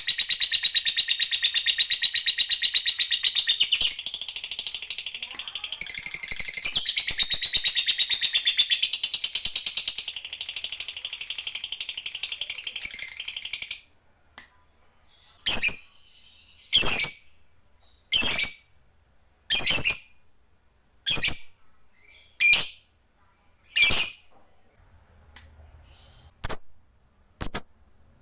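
Lovebird giving a long, very rapid high-pitched chattering trill (the 'ngekek panjang' prized by lovebird keepers) for about fourteen seconds. It cuts off abruptly and gives way to single sharp calls, about one every second and a half.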